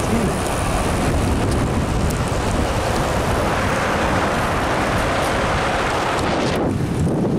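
Steady wind noise buffeting the microphone of a camera carried on a moving bicycle. The rushing hiss thins briefly near the end.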